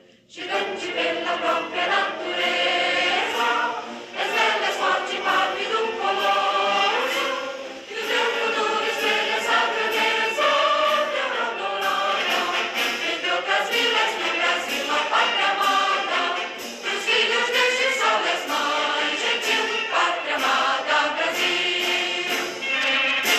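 Choral music: a choir singing, coming in just after a brief drop at the start.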